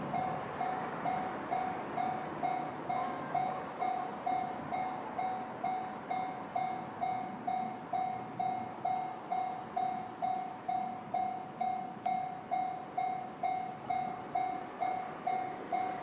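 Japanese railway level-crossing electronic warning bell, JR standard tone, dinging steadily at about two strokes a second, each stroke sharp and then fading: the crossing is active with a train approaching.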